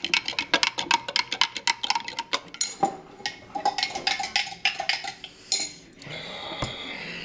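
Metal spoon stirring a drink in a glass, clinking rapidly against the glass several times a second, then slowing to scattered clinks that stop about five and a half seconds in.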